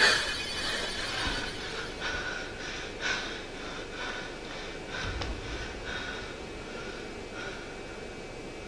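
A person panting hard, about two quick breaths a second, dying away slowly.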